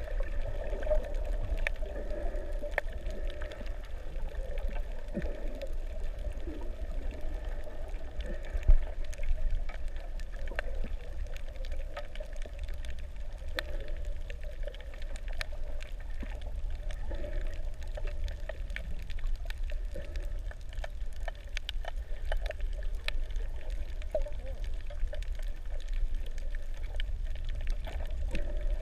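Underwater sound picked up by an action camera in its waterproof housing: a muffled, steady water rumble with scattered clicks and crackles, and one sharp knock about nine seconds in.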